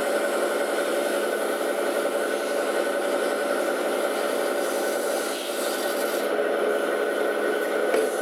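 KATO-TECHNO KS-700FA metal spinning lathe running: a steady mechanical noise with a few held tones. The higher part of the sound drops away about six seconds in, and there is a brief knock near the end.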